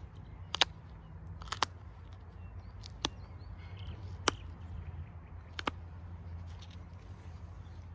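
Flint blade being pressure-flaked with a copper-tipped flaker against a leather hand pad: five sharp clicks, about a second apart, as small flakes pop off the edge while it is sharpened. A low steady hum runs underneath.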